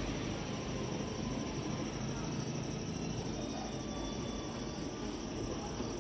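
Crickets chirping steadily over a soft background hiss.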